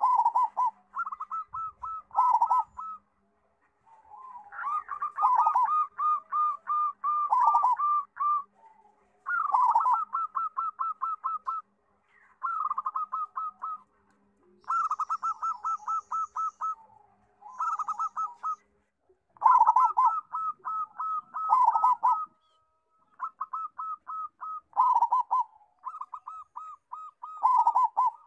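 Zebra dove (perkutut) singing: repeated phrases of quick staccato coos around one pitch, each phrase a rapid run of notes lasting one to three seconds, with short pauses between phrases.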